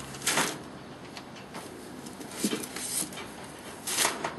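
A few short rustles and knocks of wrapped meat being handled, lifted out of a cooler and laid on a smoker's cooking grate.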